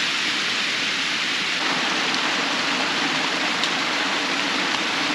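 Water running down a concrete dam face in a thin sheet, a steady rushing wash of sound. Its tone shifts slightly about one and a half seconds in.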